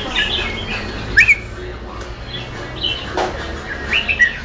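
Red-whiskered × yellow-vented bulbul hybrid giving short chirpy calls in scattered bursts, the loudest a rising pair of notes about a second in, with a single knock about three seconds in.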